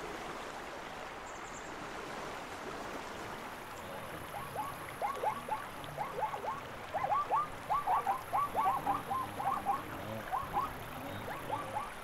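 A run of short, quick animal calls, many in a row and in irregular clusters, starting about four seconds in and thinning out near the end, over a steady faint hiss.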